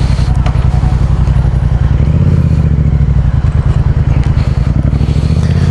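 Yamaha XSR700's parallel-twin engine running through its Yoshimura R77 exhaust, a steady, evenly pulsing exhaust note.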